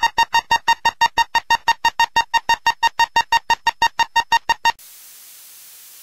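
Electronic emergency-alert beeping: a rapid train of short, high-pitched, identical beeps, about five or six a second, that stops abruptly near the end and leaves a faint steady hiss.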